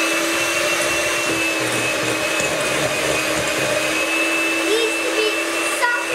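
Electric hand mixer running at a steady speed with a constant motor whine, its beaters creaming butter, sugar and egg in a glass bowl.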